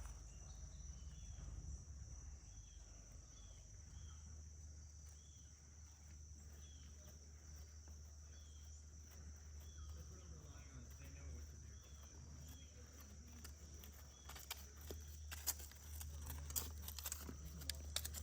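Faint outdoor farmyard ambience: a steady high insect drone, such as crickets, with soft short chirps about once a second. Scattered clicks and rustles come in the last few seconds.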